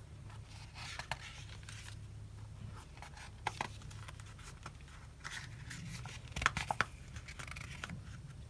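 Pages of a thick Joann Mega Value Pack sticker book being leafed through: soft paper rustles and a few sharp taps and clicks, loudest about six and a half seconds in, over a faint low hum.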